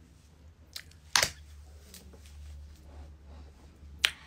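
Two sharp clicks, one a little after a second in and another about three seconds later, over a low steady hum.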